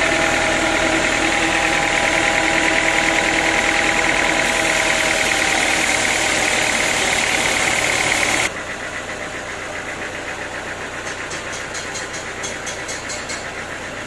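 Sawmill engine running steadily with a fine rapid pulsing, dropping suddenly to a quieter level about eight and a half seconds in.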